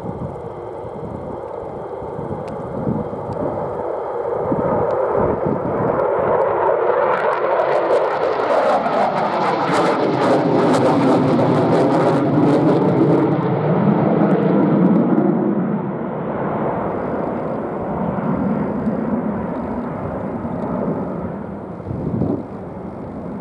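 F-15E Strike Eagle's twin Pratt & Whitney F100 turbofans passing by on a go-around after an aborted landing approach. The jet noise builds from a few seconds in and is loudest around the middle, with a sweeping, phasing whoosh as the jet goes past, then it eases off as the jet climbs away.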